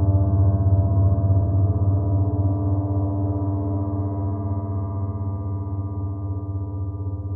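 A large gong ringing on with a deep low tone and many higher tones layered over it. The sound wavers in steady pulses and slowly fades, with no new strike.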